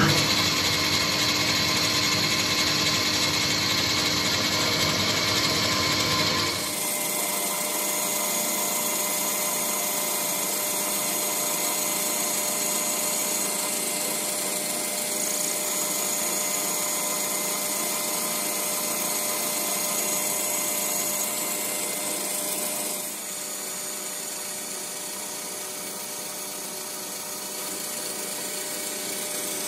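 Boxford BUD lathe running steadily while a boring bar cuts out the bore of a brass tank blank, with several steady whine tones over the machining noise. The sound changes abruptly about six seconds in and again about 23 seconds in.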